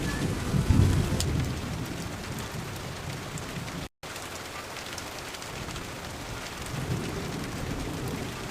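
Steady monsoon rain, with a low thunder rumble fading away over the first second or so. A split-second dropout in the sound about halfway through.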